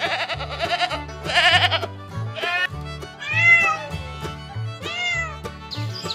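Several short animal cries, about five in turn, each rising and falling in pitch, over background music with a steady repeating bass line.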